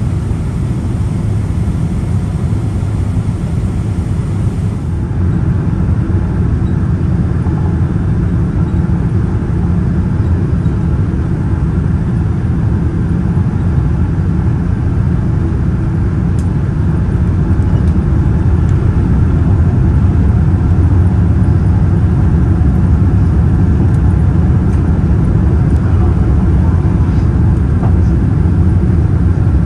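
Steady low rumble of a Boeing 787-9's Rolls-Royce Trent 1000 engines and airflow heard inside the passenger cabin, growing slightly louder after the middle.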